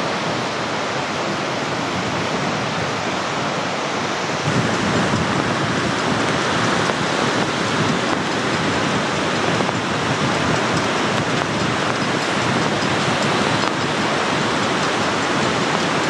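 Surf from a stormy sea breaking on the shore, with strong wind buffeting the microphone. The wind rumble gets stronger about four and a half seconds in.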